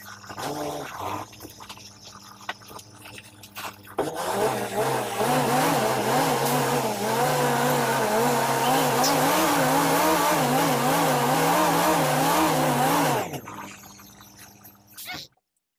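City bus engine running, heard from inside the bus; about four seconds in it grows loud, with a pitch that wavers up and down about twice a second, then drops away near the end.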